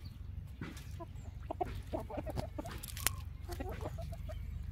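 Chickens clucking in short runs of quick notes over a low steady rumble, with a single sharp click about three seconds in.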